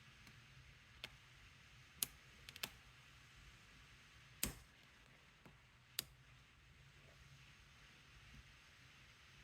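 Lock pick clicking on the pins of a Squire SAL40 padlock under heavy tension: about six faint, sharp clicks, scattered irregularly over the first six seconds, as pins set.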